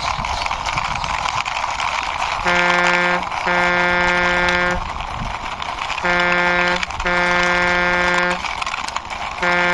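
A steady scraping rumble of a toy truck's wheels being pushed along, then a truck-horn sound honking in short-then-long pairs, "honk, hoooonk", three times about every three and a half seconds.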